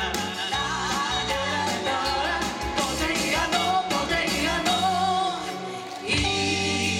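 A live pop band playing with two women singing, backed by electric guitar, bass guitar, keyboard and drums. The band dips briefly near the end, then comes back in at full strength.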